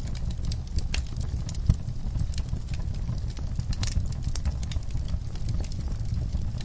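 Wood fire in an outdoor firepit crackling, with irregular sharp pops over a steady low rumble, and one louder pop nearly two seconds in.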